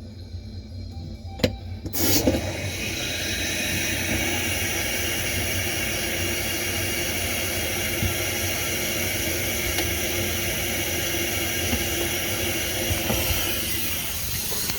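Tap water running steadily into a sink and down its drain. It starts suddenly about two seconds in and tests the freshly reassembled drain pipes.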